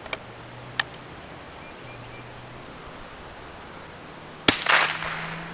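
A single .22 Long Rifle gunshot from a CCI Blazer round about four and a half seconds in: one sharp, loud boom with a trailing echo of about a second. A few faint clicks come before it.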